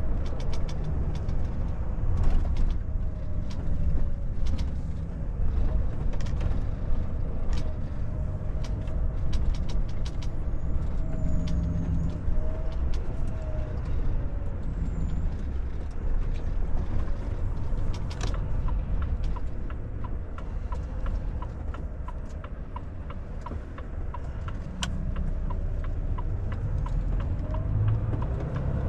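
Volvo FH 460 truck driving slowly, heard from inside the cab: steady low diesel engine and tyre noise with scattered sharp clicks and rattles. In the second half a regular light ticking, about two a second, joins in.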